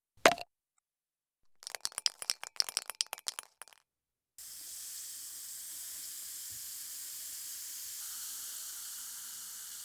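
Aerosol spray paint can: one sharp click, then about two seconds of shaking with the mixing ball rattling rapidly inside, then after a short pause a long steady hiss of spraying.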